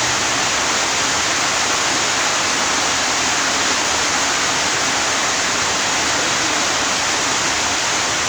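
A steady, even rushing hiss with nothing standing out from it.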